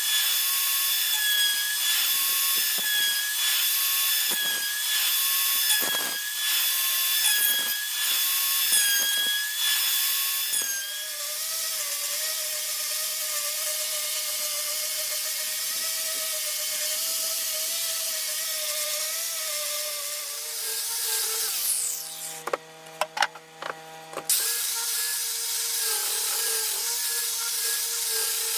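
Router motor whining steadily while cutting wood. About eleven seconds in its pitch drops to a lower whine. Around twenty-two seconds it briefly falls away with a few sharp clicks, then runs again.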